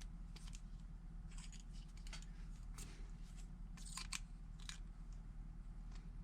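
Faint clicks and scrapes of a tungsten electrode and collet being worked into a CK17 TIG torch head, the tungsten binding on paint, over a steady low hum.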